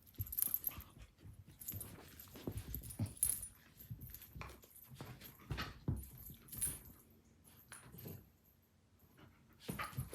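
Two dogs play-fighting: irregular scuffles and thumps of paws and bodies, with a light metallic jingle.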